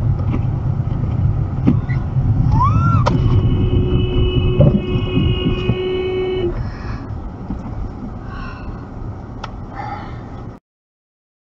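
Low road and engine rumble heard inside a car driving through slush, with a few knocks. About three seconds in, a car horn sounds steadily for about three and a half seconds. The rumble then fades as the car slows almost to a stop.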